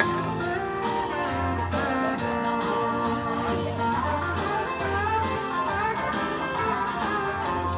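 Instrumental break of a country-rock song: guitar lines over a steady bass and drum beat, with no singing.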